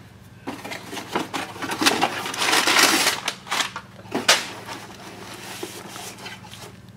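A cardboard mailing box being torn open by hand: scraping, ripping and crinkling of cardboard and paper, loudest in the middle, with one sharper rip about four seconds in, then softer rustling.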